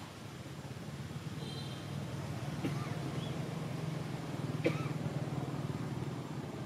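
Low engine hum of a passing vehicle that swells through the middle and eases off near the end. A few short, faint, high squeaks and a single sharp click about two-thirds of the way in sit over it.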